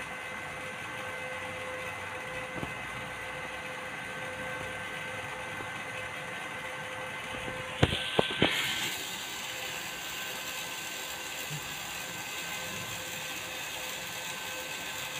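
Welding machine's cooling fan running with a steady hum and a ratcheting rattle, the fan noise the repairer calls 'kes kes', a sign that the fan is faulty. A few sharp clicks and a short rush of noise come about eight seconds in.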